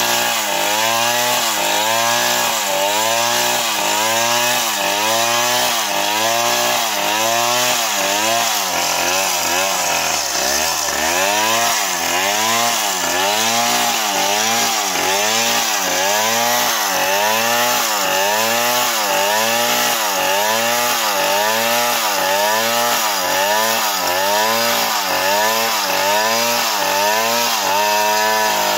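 Stihl chainsaw running at full throttle while ripping lengthwise through a trembesi log. The engine pitch wavers up and down about once a second, stumbles briefly about ten seconds in, and steadies near the end.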